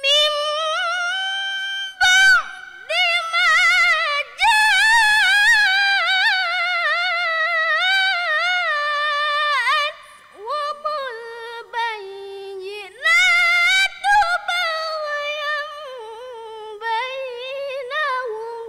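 A young girl reciting the Qur'an in melodic tilawah style: one high voice drawn out in long phrases with wavering ornaments, broken by a few short pauses for breath.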